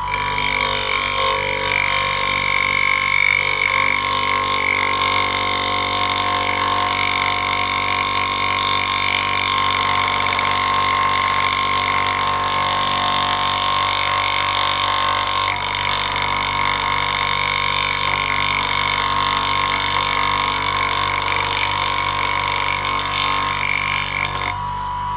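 Bench grinder wheel grinding a lathe tool bit held in a motorized sharpening jig: a steady whine with a continuous grinding hiss, cutting off sharply near the end.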